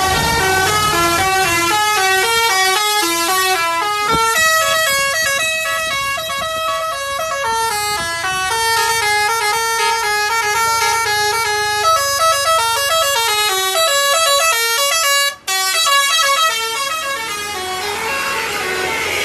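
Telolet basuri musical bus horn playing a fast melody of short notes that step up and down in pitch. The sound cuts out for an instant about fifteen seconds in, then the tune carries on.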